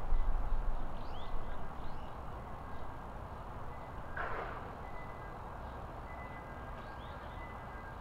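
Outdoor nature ambience: a steady rushing background noise with a gusty low rumble that eases off over the first few seconds. A few faint, short, high bird chirps sound over it, and a brief rustling burst comes about halfway through.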